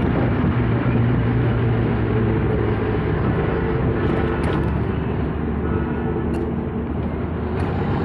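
A vehicle engine running steadily with a low hum, with a few brief clicks in the second half.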